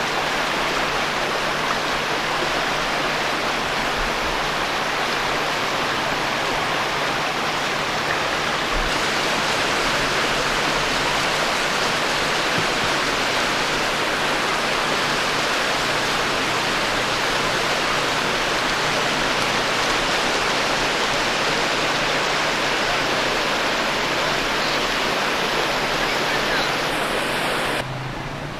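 Susquehanna River floodwater rushing and churning through a flooded street: a steady, loud rush of turbulent water that drops away sharply near the end.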